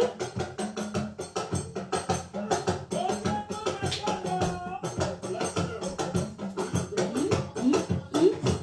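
Music with dense percussion keeping a steady, busy beat. Near the end comes a quick run of short rising notes, about two or three a second.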